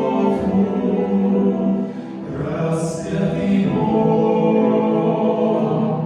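Choir singing a Christian hymn in long held notes.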